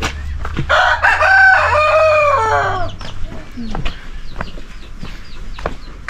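A rooster crowing once: a single call of about two seconds that drops in pitch at the end.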